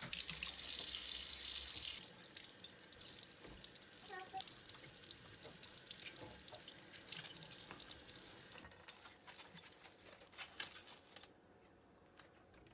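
Water running from a tap into a sink and splashing, loudest in the first couple of seconds and dying away after about nine seconds, with a few light clicks near the end.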